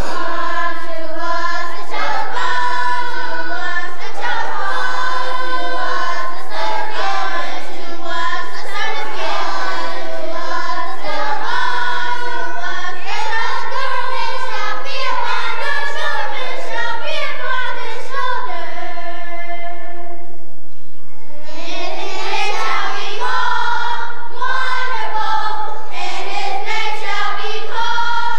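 A children's choir singing together, with a short break between phrases about two-thirds of the way through.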